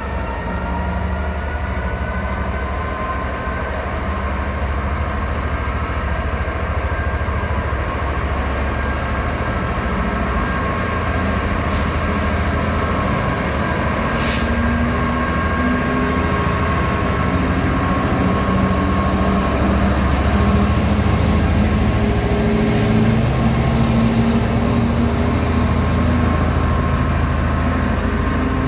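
A train running close by with a steady mechanical drone and whine that grows slowly louder. Two short hisses of air come about 12 and 14 seconds in.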